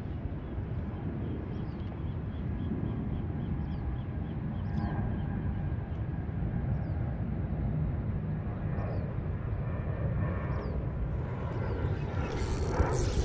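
Steady low outdoor rumble over open water, with faint short high chirps now and then and a brief run of faint even ticks early on; a hiss rises near the end.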